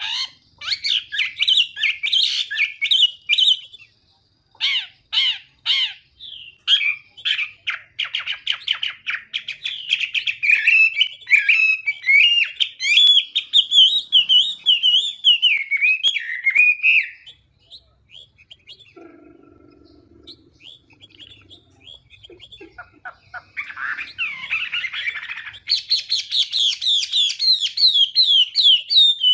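Chinese hwamei (họa mi) singing: fast, rich warbling phrases of rapid whistled and trilled notes. The song breaks off about 17 seconds in and starts again about six seconds later.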